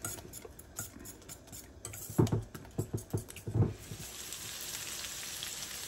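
Egg and grated cheese being beaten with a metal utensil in a stainless steel bowl, rapid clicking and scraping against the bowl with a few louder knocks. About four seconds in, diced pancetta starts sizzling steadily as it renders in a frying pan.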